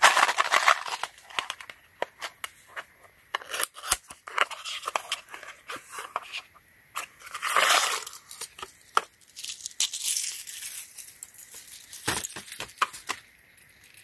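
A small paperboard box being opened and a chrome Zippo accessory chain pulled out and handled: cardboard and paper rustling and scraping with many short clicks and the light clink of metal links, with a longer rustle about halfway through.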